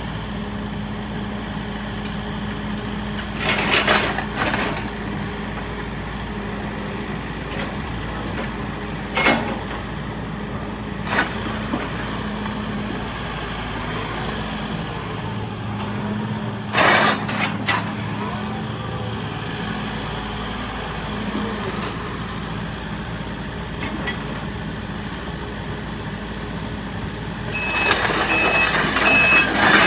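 The Link-Belt 145X4LC excavator's four-cylinder Isuzu diesel idling steadily, with a few brief sharp noises over the hum. Near the end the engine gets louder and a short, repeating high beep starts.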